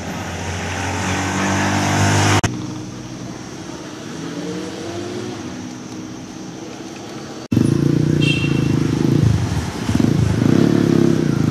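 Motor vehicle engines in road traffic. One grows louder until the sound cuts off abruptly about two seconds in, then a steadier engine sound runs until a second sudden cut past halfway, after which the engine noise is louder and denser.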